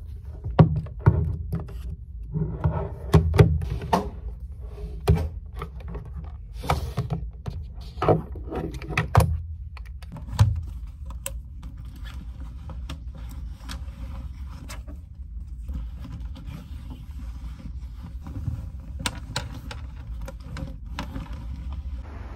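Laptop, tablet and other belongings being packed into a backpack on a wooden desk: a run of knocks, taps and rustles as things are handled and slid in, thinning after about ten seconds to occasional clicks over a low steady hum.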